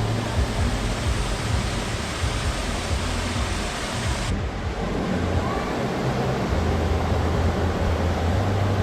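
Steady rushing of a waterfall: a continuous hiss of falling water over a deep low rumble.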